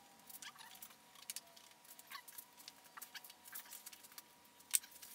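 Faint, scattered clicks, light metal clinks and small scrapes of hands and tools working on a Yamaha YZ250F engine's cylinder during a top-end rebuild, with one sharper click near the end.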